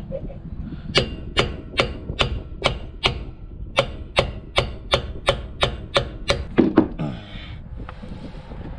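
Repeated hammer blows: about fifteen sharp, evenly paced strikes at roughly two and a half a second, with a short break about three seconds in. They stop about seven seconds in.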